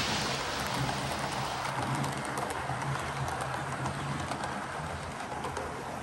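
Model train running on the layout's track: a steady faint motor hum with small scattered clicks of the wheels over the rails, under a hiss.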